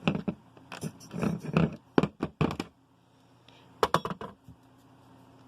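Dirt being scraped off a stock dirt-bike footpeg: a quick run of short, sharp scraping and knocking strokes over the first two and a half seconds, then a few more just before four seconds in.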